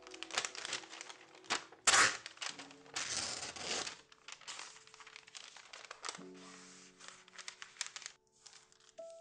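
Sheet of paper handled and torn along a steel ruler: crinkling and rustling with a loud sharp tear about two seconds in and a longer rough tear around three seconds, then softer rustling as the cut piece is smoothed flat. Soft lo-fi background music underneath, clearer in the second half.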